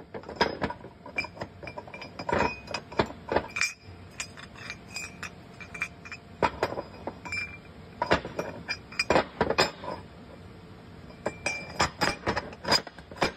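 Loose clinks and clacks of a John Deere 3020 transmission's steel shift fork and synchronizer being fitted together and worked side to side on a metal bench. The clinks come in irregular clusters, some with a short metallic ring. They come from the fork knocking in the synchronizer, which has too much side-to-side play: the worn parts behind the grinding shifts.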